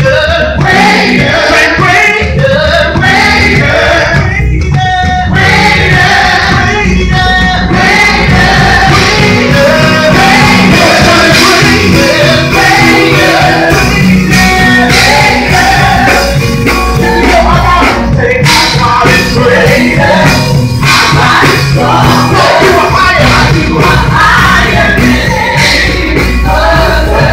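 A gospel praise-and-worship team of male and female singers singing loudly with a live band of keyboard and electric guitar.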